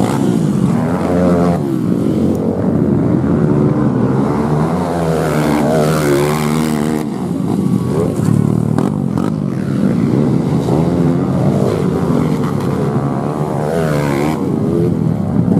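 Several four-stroke trail motorcycles racing past on a dirt track, their engines revving hard and repeatedly rising and falling in pitch as the bikes come by one after another.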